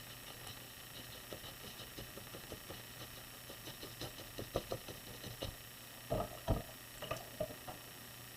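Paintbrush dabbing and tapping on watercolour paper: a run of soft, irregular taps, with a few louder knocks about six seconds in.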